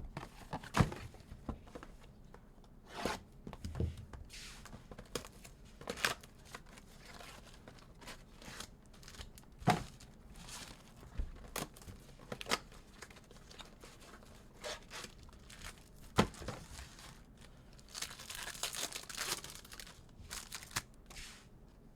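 Trading card packaging being torn open and crinkled, with scattered clicks and taps as the packs and cards are handled, and a longer tear near the end.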